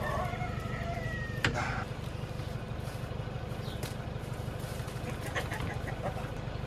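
A pickup truck's engine idling steadily, with one sharp knock about a second and a half in.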